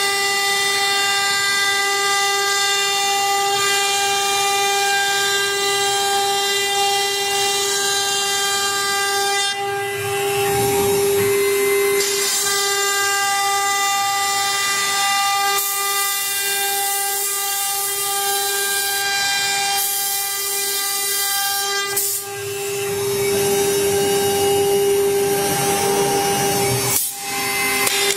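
LXM1325-A2 CNC router's spindle whining steadily at one high pitch as its end mill cuts a curved outline through a wood sheet, with the hiss of the cut under it; the sound breaks off briefly a few times.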